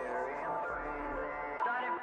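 Quiet melodic music with no beat, the soft gap between two hip-hop tracks in a soundtrack. There is a short click near the end.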